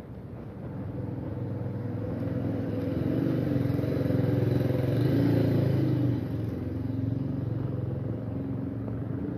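A motor vehicle's engine passing by, growing louder to a peak about halfway through and then fading.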